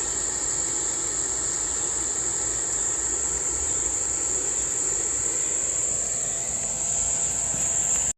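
Insects, likely crickets, keep up a steady, unbroken high-pitched trill, with a faint low rumble underneath.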